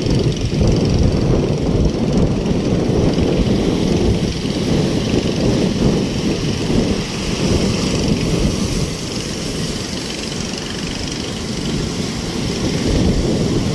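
Steady low roar of heavy surf, swelling and easing a little, with no clear engine tone.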